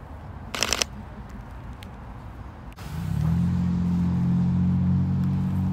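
A brief rapid rattle of clicks about half a second in. From about three seconds a steady low hum with several even pitches sets in and holds, louder than anything else.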